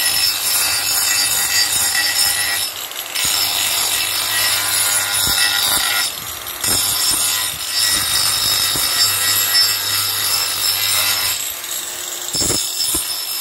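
Handheld angle grinder with a sanding disc running against a wooden carving, a continuous high whine and rasp of abrasive on wood. It eases off briefly a few times as the disc lifts from the wood.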